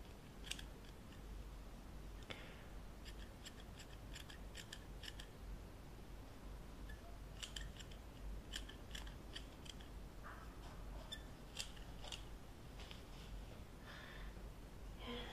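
Haircutting scissors snipping close to the microphone in several short runs of crisp snips, with pauses between the runs.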